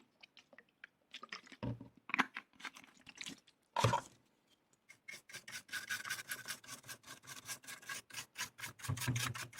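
A dirty power-supply circuit board being scrubbed clean, with a few scattered scrapes and then quick back-and-forth rubbing strokes, about five a second, from about halfway through.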